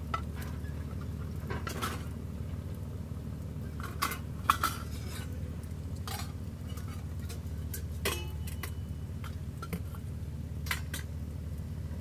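Metal camping cookware clinking and knocking as a small pot is handled and unpacked: a handful of separate knocks, the loudest about four and a half seconds in, one about eight seconds in ringing briefly, over a steady low background noise.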